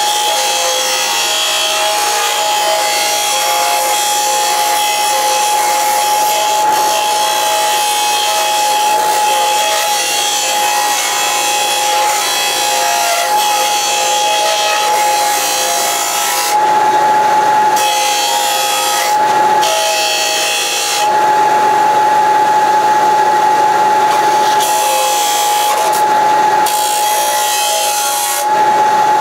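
Porter-Cable bench disc sander running with a steady whine while the edge of a steel sheet-metal blank is ground against its abrasive disc. In the second half, the grinding gets louder and changes in tone for several stretches of a second or more, as the metal is pressed into the disc.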